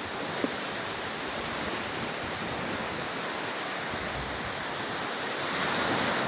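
Sea surf washing onto the beach as a steady rush, swelling louder near the end as a wave breaks. There is one brief click about half a second in.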